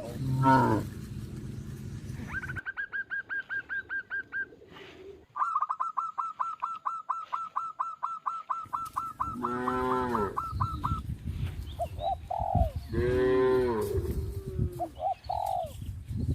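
Cattle mooing twice, two loud drawn-out calls about ten and thirteen seconds in, over a fast run of high chirping notes at several a second and a few short paired calls.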